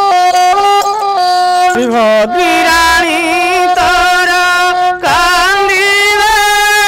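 A folk bowed string instrument plays a steady, stepped melody. From about two seconds in, a man sings over it, his voice wobbling up and down in pitch in a devotional, chant-like style.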